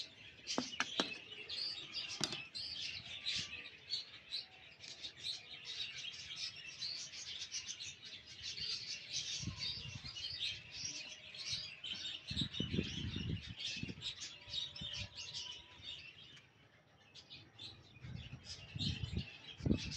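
Many small birds chirping continuously in rapid short calls. A few low rumbles come in around the middle and near the end.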